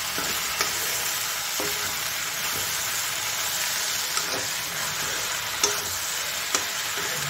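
Elephant apple slices and spices sizzling in hot oil in a wok as they are stirred, with a steady frying hiss and a few sharp clicks of the steel spoon against the pan.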